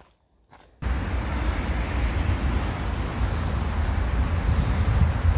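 Wind buffeting a phone microphone outdoors: a steady low rumble with hiss that starts abruptly about a second in, after a brief silent gap.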